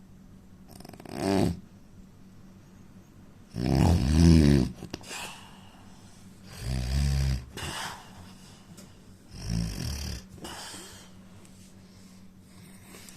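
A man snoring heavily: four loud, rattling snores about every three seconds, the second the loudest. Each snore is followed by a short breathy hiss.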